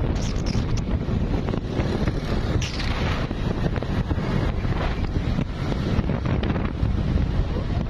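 Steady wind noise buffeting the microphone of a motorcycle at riding speed, with road and vehicle noise underneath.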